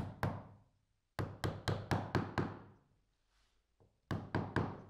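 Large mallet gently tapping a glued walnut handle into its slot in a wooden drawer front: short runs of light knocks, about four a second, with pauses between runs.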